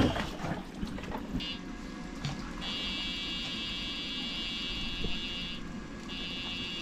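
A thump, then a high-pitched electric buzz from a 24 Fet Cọp electrofishing shocker, switched on in bursts: a short one about a second and a half in, a long one of about three seconds, and another starting near the end. Each burst is a pulse of current sent into the water to stun fish.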